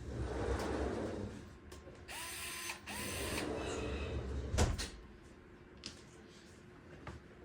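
Fanttik cordless electric screwdriver running in short bursts as it backs out the fan grille's small Phillips screws, two of the bursts with a quick rising whine as the motor spins up. A sharp knock comes about four and a half seconds in, followed by a few faint taps.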